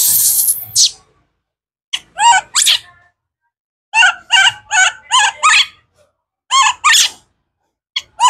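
Baby macaque screaming in short, high, repeated squealing calls: a harsh drawn-out cry in the first second, then runs of two to five quick calls with silent pauses between. These are the screams of a hungry infant monkey wanting fruit.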